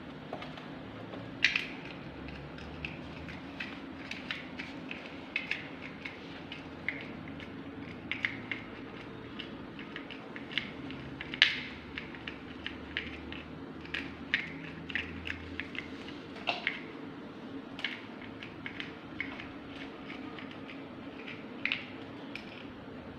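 Irregular light clicks and taps of plastic toy building blocks being knocked about and mouthed by kittens, over a steady low hum.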